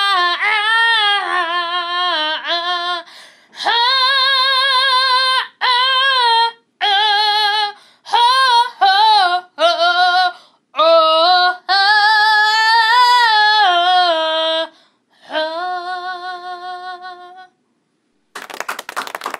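A woman singing solo without accompaniment, in short phrases of long held notes with a strong wavering vibrato and brief gaps between them. The singing stops near the end, and after a short pause clapping starts.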